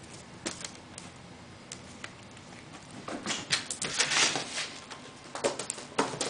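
A kitten playing among gift-wrapped boxes and ribbon: scattered light taps and clicks, with a louder patch of rustling and scuffing in the middle and another near the end.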